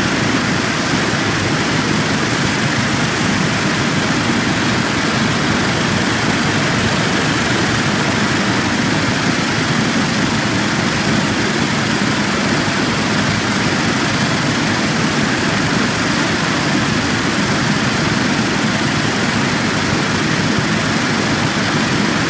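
Virto VPM 1200 circular vibrating screen running steadily, its vibratory drive humming under the rushing of water as plastic flakes are dewatered on an 800 micron mesh.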